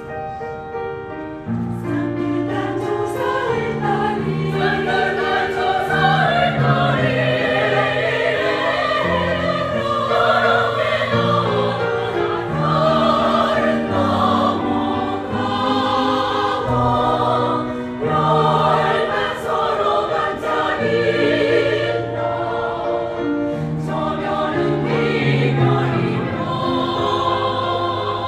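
A choir singing with instrumental accompaniment.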